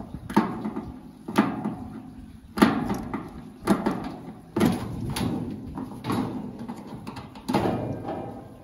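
Metal tool knocking and prying against the thin sheet-steel panel of a stripped oven: irregular clanks about once a second, each ringing briefly through the panel.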